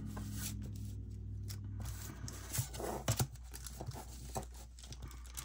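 Light rustling of sticker paper and small clicks and taps of a clear plastic ruler being slid into place on a planner page, over a steady low hum.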